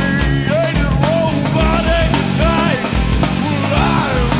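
Rock music with electric guitar, bass and drums, running continuously at a steady loud level.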